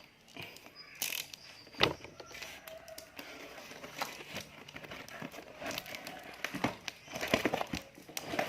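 Packaging being handled by hand: rustling wrapping with scattered clicks and knocks, a sharp knock about two seconds in and a cluster of knocks near the end.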